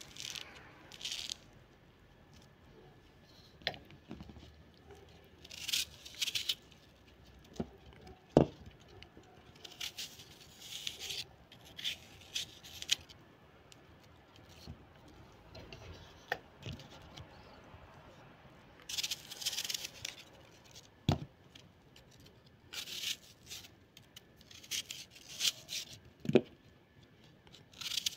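Fruit being peeled and cut by hand with a small knife: short scraping and tearing strokes as the peel and flesh are cut, come and go, with a few sharp knocks in between.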